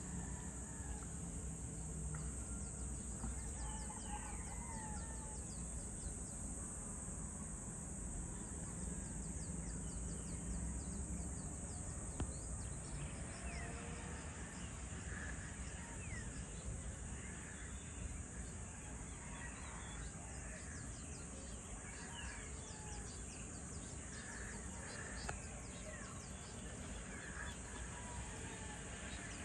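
Outdoor evening ambience: a steady high-pitched insect chorus with scattered bird calls and chirps, which grow more frequent about halfway through, over a low background rumble.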